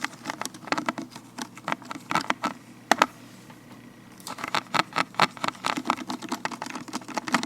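Vinyl-latex gloved fingertips tapping rapidly in quick flurries. A sharper click comes about three seconds in, the tapping pauses for about a second, then resumes and stops just before the end.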